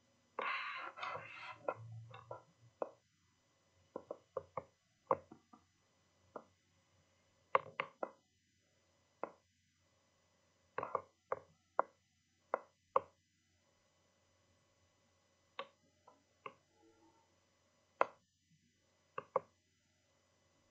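Sharp single clicks at irregular intervals, one or two a second, from a computer being used to scroll through a document. A brief rustle comes about half a second in and is the loudest sound.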